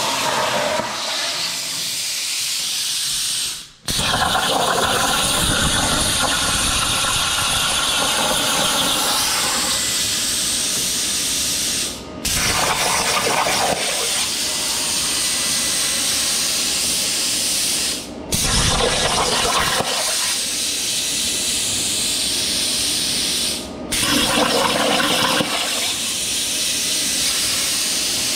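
Plasma torch on a CNC table cutting aluminium diamond-tread plate at 40 amps: a loud, steady hiss of the arc and compressed air. It breaks off sharply and briefly about four times and then resumes.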